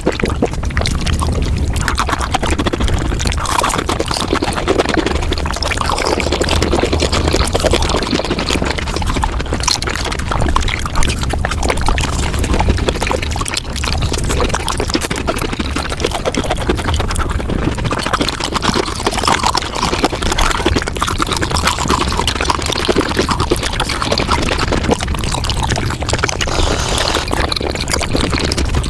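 Mukbang eating sounds played at five times speed: a dense, unbroken stream of fast chewing, crunching and slurping clicks.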